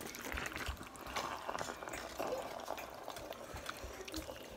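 Metal spoon stirring shrimp and bow-tie pasta through thick, creamy Alfredo sauce in a nonstick pan: a wet, sticky stirring sound with many small clicks.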